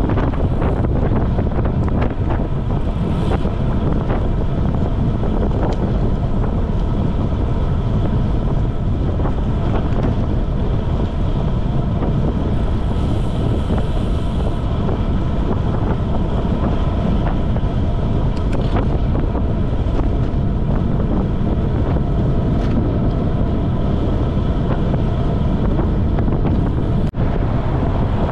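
Steady wind rushing over the microphone of a camera mounted on a road bike riding at speed, a dense low rumble throughout, with a very brief dropout about a second before the end.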